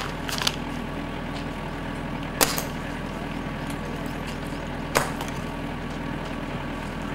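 Two sharp pops from a tranquilizer dart gun (air-powered capture gun) being fired, about two and a half seconds apart, with a fainter click about half a second in. A steady low hum runs underneath.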